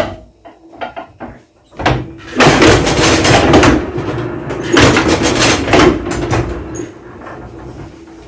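Hand-operated lithographic press at work: a few clunks of the pressure lever being set, then from about two seconds in a loud grinding rumble as the bed is cranked through under the scraper, easing off near the end.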